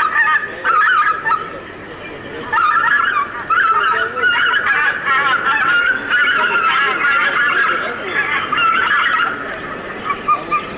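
A flock of geese honking continuously in many overlapping calls: a recorded goose-flock call played back as a hunting lure. The calling thins briefly about two seconds in, then carries on thick.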